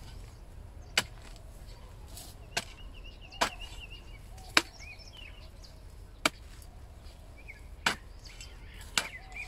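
Hand hoe's metal blade chopping into hard, dry soil clods to break them up, seven sharp strikes at an uneven pace of about one every second or so.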